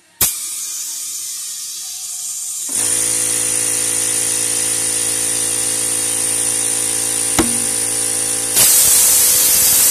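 Compressed air hissing into a tire through a coreless valve stem from a quick-connect chuck, to seat the tire bead on the wheel. About three seconds in, a small air compressor's motor starts with a steady hum. About seven seconds in comes a single sharp pop, the bead snapping onto the rim, and near the end the hiss grows louder.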